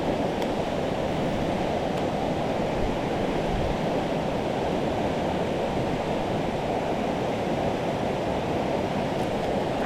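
Mountain stream rushing steadily over rocks, a constant even roar of water.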